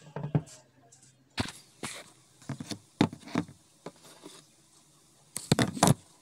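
Scattered short knocks, clicks and taps of hands handling a phone and a homemade speaker on a tabletop, with a quick cluster of sharper clicks near the end.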